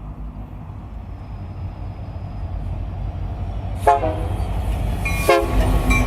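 Union Pacific EMD diesel locomotives approaching, their low engine rumble growing steadily louder, with two short horn blasts about four and five seconds in.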